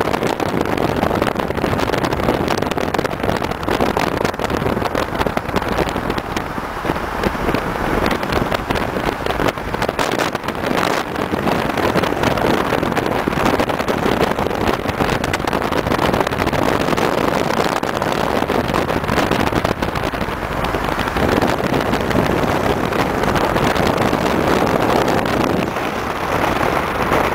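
Ford Galaxie cars driving in a convoy: engines running under a steady rush of road and wind noise.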